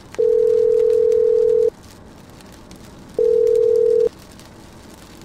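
Telephone ringback tone as an outgoing call rings out: a steady low beep lasting about a second and a half, then a second beep about three seconds in that stops after under a second.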